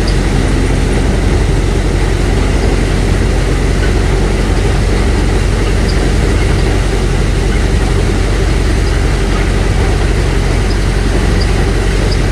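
Paddy thresher running steadily at full speed: a loud, even machine drone with a low engine hum under dense threshing noise.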